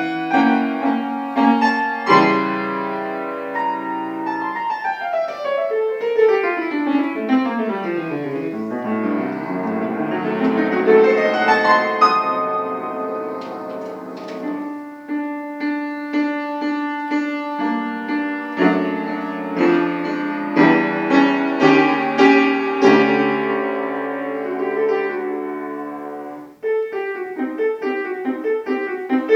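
Solo piano playing a classical piece: a long run of notes descending from the treble into the bass, rising figures, then chordal passages, with a brief break shortly before the end as a new section begins.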